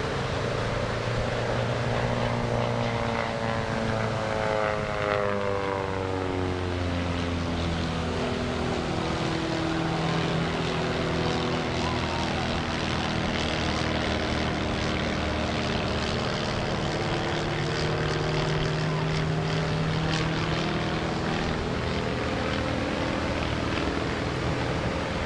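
Pitts aerobatic biplane's piston engine and propeller in flight, a steady droning note that slides down in pitch from about two seconds in, holds, and climbs again near the end as the plane manoeuvres.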